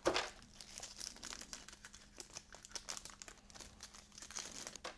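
A thin clear plastic bag crinkling and crackling as hands handle the bagged toy accessory, a quiet run of small, irregular crackles.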